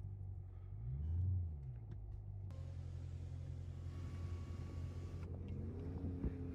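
Dodge Charger Scat Pack's 392 HEMI V8 running low, revving up and back down briefly about a second in, then climbing in pitch again near the end. A steady hiss runs for a few seconds in the middle.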